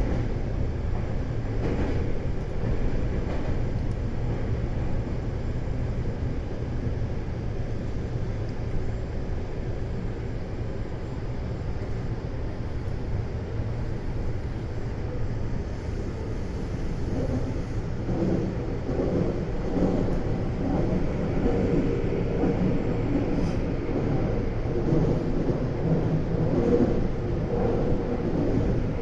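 Meitetsu 200 series electric train running on the line, heard from inside the train: a steady rumble of wheels on rail and running gear. It grows louder and rougher past the midpoint.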